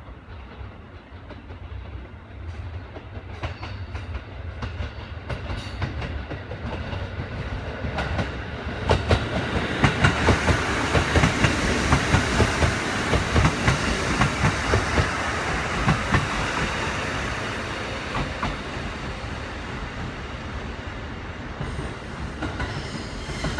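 KiHa 75 diesel multiple unit pulling into a station: its diesel engines rumble and its wheels clatter over rail joints and points. The sound grows louder as it approaches, peaks in a run of regular thumps as the cars pass, then eases off as the train slows.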